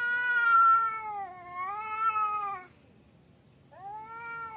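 Male domestic cats yowling in a territorial standoff: one long, wavering yowl of about two and a half seconds that dips in pitch midway, then a shorter yowl near the end.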